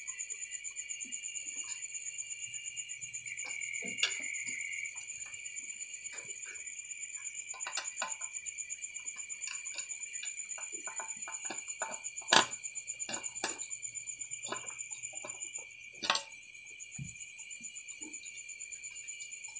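Clicks, taps and knocks of plastic and metal headlight parts being handled and worked with a screwdriver, the loudest a sharp knock about twelve seconds in. Under them is a steady, high-pitched pulsing trill.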